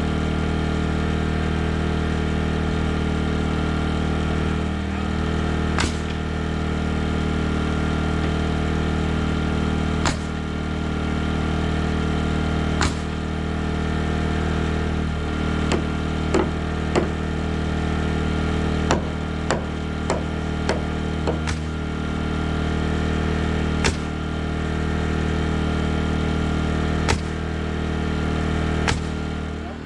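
A small engine drones steadily while sharp strikes on wood ring out, singly and in a quick run of several about half a second apart midway, as the LVL header plies are fastened together.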